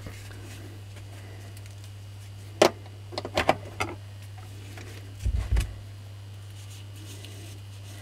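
Steady low electrical hum, with a sharp knock about two and a half seconds in, a quick run of clicks just after it, and a low double thump a little past five seconds, as motor parts are handled on the workbench.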